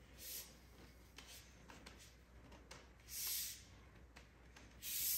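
Three short, soft swishing rustles, each about half a second long and spaced a couple of seconds apart, with a few faint clicks in between.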